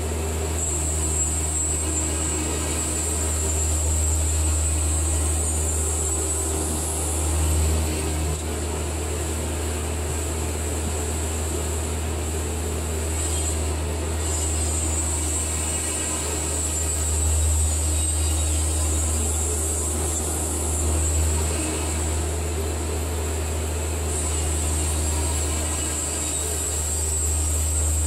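Baker portable bandsaw mill running steadily: its engine drones and the band blade spins, with a few slight swells in level as the sawhead is set up and then travels down the log cutting a board.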